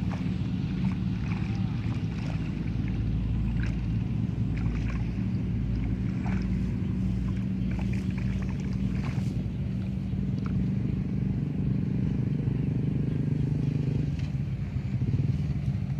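A small engine running steadily, its note shifting about two seconds before the end.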